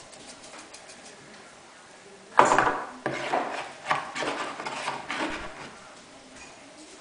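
A spoon clattering and scraping against a bowl in a run of uneven strokes. It starts suddenly with a loud knock about two and a half seconds in and dies down a few seconds later.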